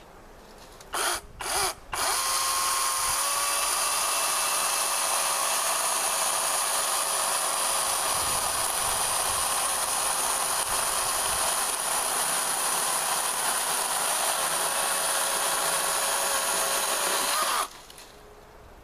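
Chainsaw blipped twice, then run at steady high speed cutting through pecan wood for about fifteen seconds, with a steady whine. It cuts off sharply near the end.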